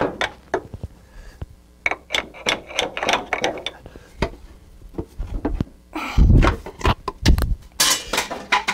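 Metal-on-metal clicks and knocks as a small steel part is worked into the dovetail slide of a lathe's taper attachment, with two heavier thumps about six and seven seconds in.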